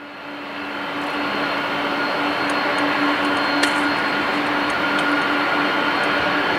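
Boeing 747-400's four jet engines at taxi power: a steady whine and rush with a low hum, fading up over the first couple of seconds and then holding level.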